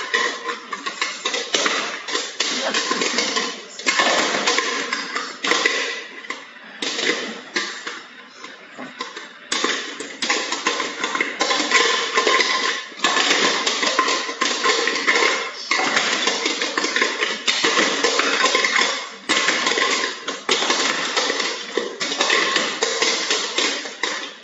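Metal spoon stirring, scraping and clattering against the inside of a metal pot in rapid, uneven strokes, with a quieter lull about a third of the way through.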